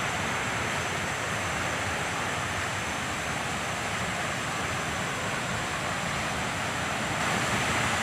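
Steady rushing noise of a waterfall, growing slightly louder near the end.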